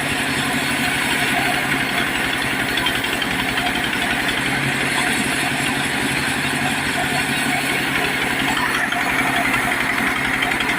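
Diesel engine of a mobile wood sawmill running steadily, with its firing pulses and a noisy upper layer that grows a little stronger near the end.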